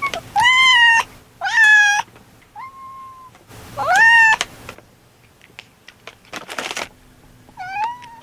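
Pet tabby cats meowing for treats, about five separate rising meows, with a short rustle about six and a half seconds in.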